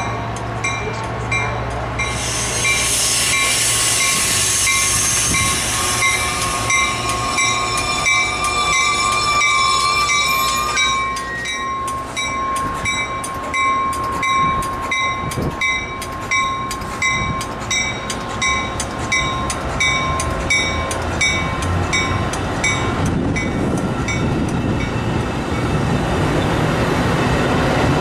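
A train running past on the BNSF Chicago Sub, with a grade-crossing bell ringing at about two to three strokes a second until about 23 s in. A burst of hiss comes about two seconds in.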